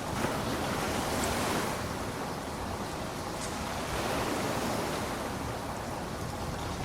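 Steady heavy rainfall: a dense, even hiss that swells and eases slightly in level.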